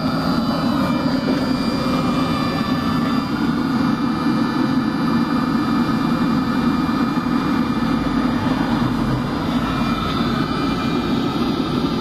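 Webasto diesel heater running steadily at full load: its combustion air fan and burner make a constant rushing drone with a thin steady whine above it.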